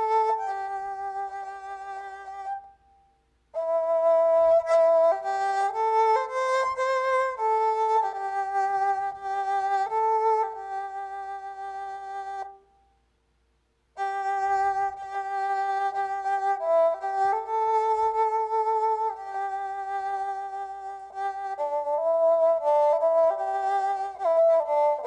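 Keyboard synthesizer playing an erhu-imitation voice: a slow melody of held notes with wavering vibrato and gliding slides between pitches, stopping briefly about three seconds in and again about halfway through. The vibrato and slides are shaped by the player's hand position on the keyboard.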